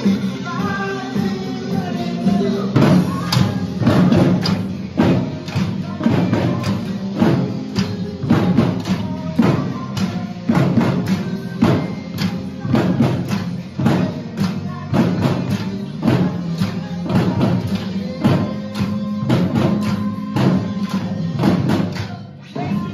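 A drum kit and a guitar playing together. The guitar rings alone at first, then the drums come in with a steady beat about two and a half seconds in, dropping away briefly near the end.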